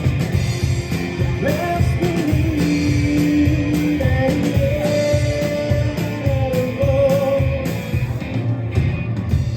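Live rock trio playing: electric guitar, bass guitar and drums with a regular beat, and a singer holding long sung notes through the middle.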